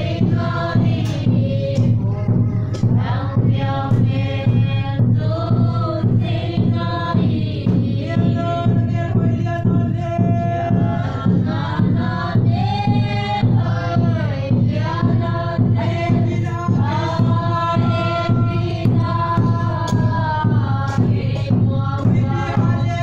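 A group of voices singing together in a chant-like song, holding notes and moving between them, over a steady low hum.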